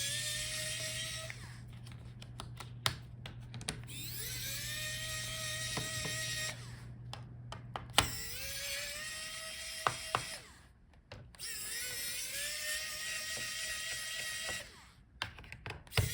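Electric screwdriver backing out the laptop's bottom-case screws: its motor whine rises as it spins up and then holds, in four runs of about two seconds each. Short clicks and taps sound between the runs.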